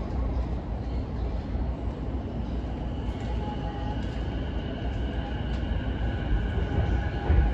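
Interior of a JR East E233 series (0-subseries) electric train starting to pull away, heard from inside the car. A steady low rumble is joined about three seconds in by the thin whine of the VVVF inverter and traction motors, which grows louder toward the end.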